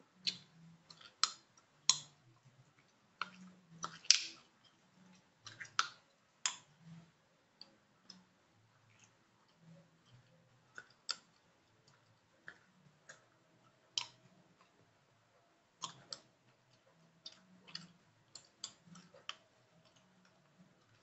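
Gum chewed close to the microphone: irregular wet mouth clicks and smacks, some sharp and loud, in clusters with short quiet gaps.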